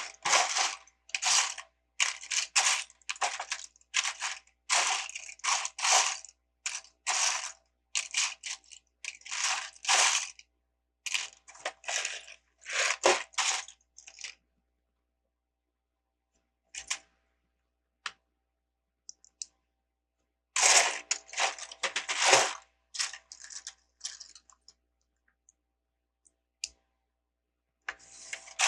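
Loose plastic LEGO pieces clattering and clicking as they are handled, in a run of short rattly bursts for about fourteen seconds, a pause with a few single clicks, then another cluster about twenty seconds in and scattered ticks near the end.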